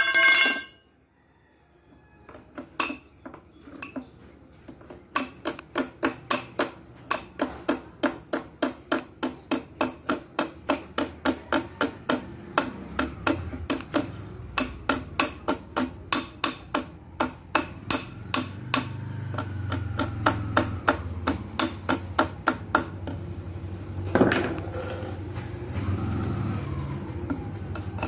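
A small hammer tapping along the metal header plate of a truck radiator core to straighten it: a long, even run of sharp metallic taps, about two to three a second. A low rumble builds underneath in the second half.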